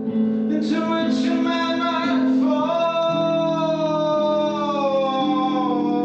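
A singer holds a long sung note that slowly falls in pitch near the end, over strummed acoustic guitar chords.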